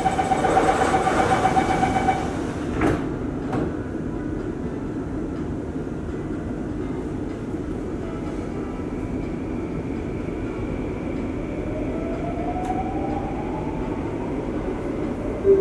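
Interior running noise of a Singapore MRT Downtown Line metro train, a steady rumble from the carriage. A steady tone sounds for the first couple of seconds, then two sharp clicks about three seconds in. A whine rises in pitch over the last few seconds.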